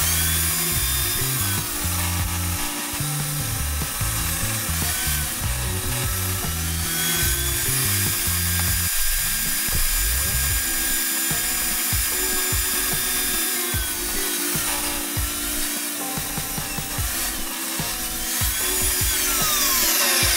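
Table saw running and cutting planed pallet pine as the overhanging edges of a tabletop are trimmed off, its motor whine dipping in pitch several times as the blade takes the load. Near the end the whine starts to fall as the saw winds down. Background music plays underneath.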